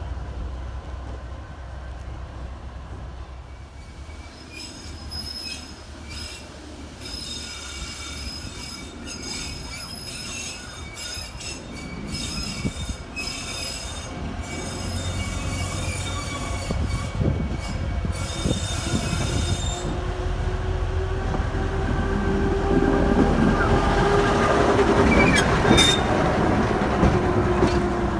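Narrow-gauge diesel locomotive running slowly into a station, its engine a low rumble that grows louder as it draws near. Its wheels squeal on the curve, with clicks over the rail joints, and the sound is loudest as it passes close near the end.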